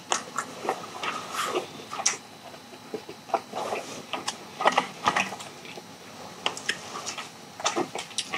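Close-miked chewing of sauced charcoal-grilled chicken: irregular soft smacks and clicks from the mouth.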